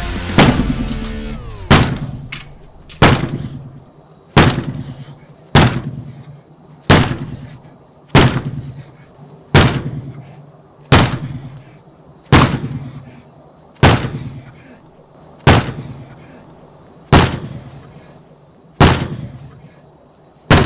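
A sledgehammer strikes a solid-timber-core composite door again and again: about fifteen heavy blows, each a sharp bang with a short ringing decay, coming every second and a half or so and slowing a little toward the end. The door holds and does not break through.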